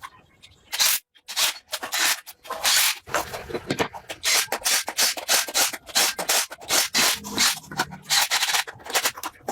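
Hand sanding on a surface: quick back-and-forth rubbing strokes, about two to three a second, starting about a second in.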